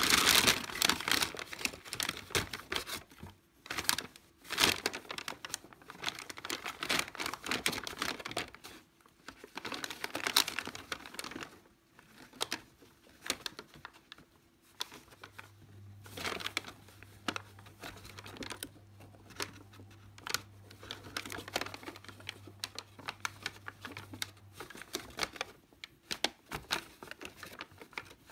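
Brown kraft paper bag crinkling and rustling as a sphynx kitten wriggles and shifts around inside it, in irregular bursts with short pauses between.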